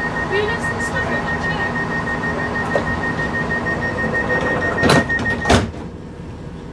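Train passenger door warning beeping rapidly and steadily as the sliding doors close, ending with two loud thumps as the doors shut about five seconds in.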